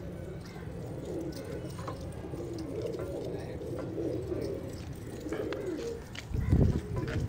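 A flock of domestic pigeons cooing continuously, many overlapping warbling calls. A low rumble, the loudest thing heard, comes about six seconds in.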